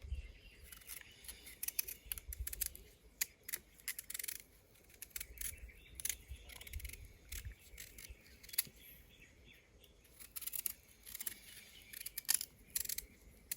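Knife peeling coco (cocoyam) by hand: a run of short, irregular scraping strokes and clicks.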